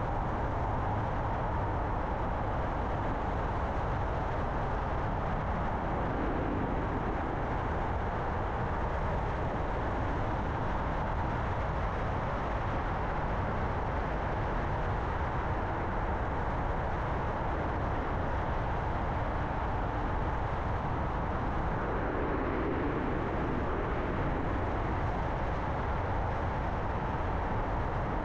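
A car being driven: steady engine and tyre noise, with a brief swell in the lower tones about six seconds in and again near twenty-two seconds.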